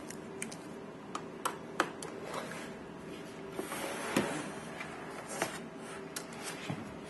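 Handling noises from a portable external hard drive and its micro USB cable: a series of short clicks and taps as the connector is pushed in and the drive is picked up and set down, with a brief rubbing, sliding noise around the middle. A faint steady hum sits underneath.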